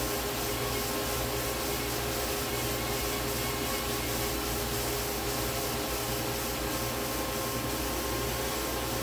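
Main spindle of a Tsugami CNC Swiss-type lathe running at a steady speed: an even whir with a few steady tones held throughout.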